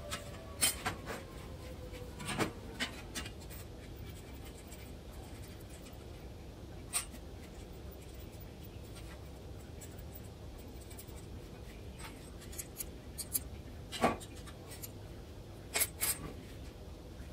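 Scattered light clicks, scrapes and knocks of metal parts being handled as swivel casters are fitted to a square steel-tube grill stand, over a steady low shop hum; the sharpest knock comes about fourteen seconds in.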